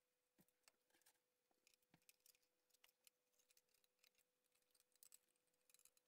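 Near silence, with faint scattered clicks and taps as the mini-lathe's sheet-metal front panel, carrying the RPM display board, is lifted off and handled.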